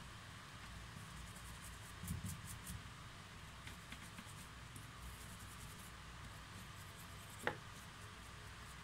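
Faint scratchy brushing of toothbrush bristles over the plastic housing and motor of a disassembled cordless drill, with one light knock about seven and a half seconds in.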